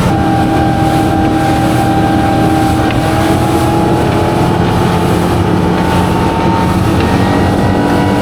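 Kenner 2102 boat's outboard engine running steadily under way, with wind buffeting the microphone.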